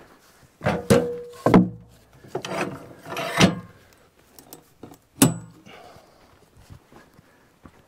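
Wooden blocks and a heavy Douglas fir log knocking and thudding as the log is jacked up and blocked level on the sawmill bunks. There are several heavy knocks with some scraping in the first few seconds, then a sharper knock with a brief high ring about five seconds in.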